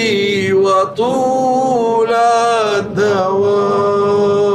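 A man's solo voice chanting unaccompanied in a slow, melismatic Arabic devotional style, with short breaths about a second and three seconds in, then one long held note.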